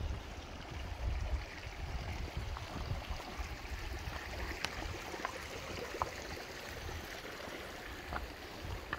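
Water running and gurgling over a low rumble of wind on the microphone, with a few light ticks and drips in the second half.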